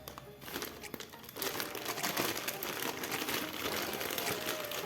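Packaging crinkling and rustling as it is handled and opened, starting about a second in as a dense run of small crackles.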